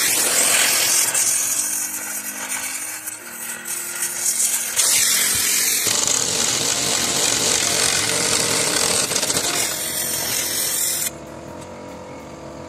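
Power tool running on a long socket extension, turning a rear suspension bolt under a Jeep Patriot. It runs loud and continuously, shifts and gets louder about five seconds in, and cuts off about eleven seconds in.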